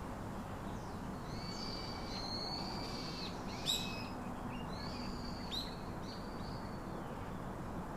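Birds calling over a steady background hiss: a string of high, drawn-out whistled calls, each holding its pitch and then dropping, with one short sharp chirp a little before the middle.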